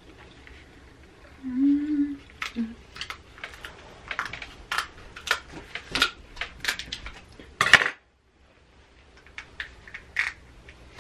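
Crab-leg shells being cut with kitchen scissors and cracked apart by hand: an irregular run of sharp clicks and shell crackles. A short hummed "mm" comes about two seconds in.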